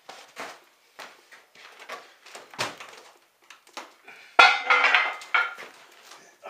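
Metal clattering and knocking, with one loud metallic clang about four seconds in that rings on briefly.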